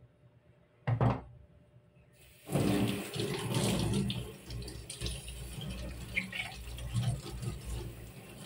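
A short clunk about a second in. From about two and a half seconds in, tap water runs from a hose and splashes over a new water-purifier filter cartridge held in the hands and into a stainless steel sink, flushing the cartridge before use.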